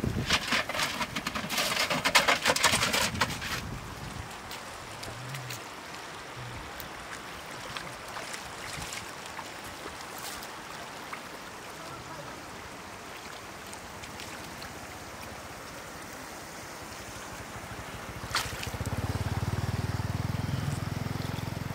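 Splashing in shallow floodwater, loudest in the first few seconds, then a steady light trickle of water running across the road. A sharp click comes near the end, followed by a low rumble.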